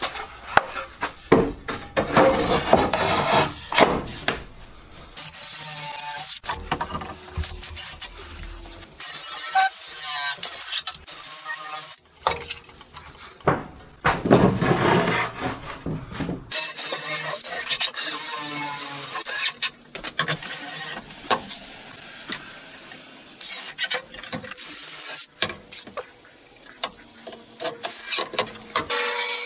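Cordless drill boring holes into wooden boards, in repeated short runs: the motor whines up as the bit cuts through the wood, then stops between holes.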